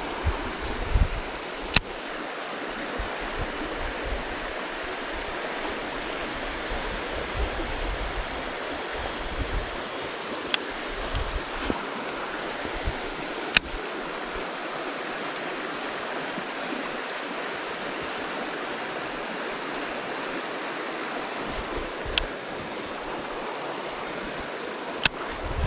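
River water rushing steadily around the wader, as a shallow current or riffle does. A few sharp clicks, about five, stand out over it.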